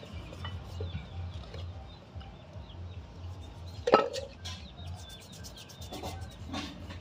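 A toothbrush scrubbing a rusty metal brake caliper bracket, with one sharp knock about four seconds in; birds chirp faintly behind it.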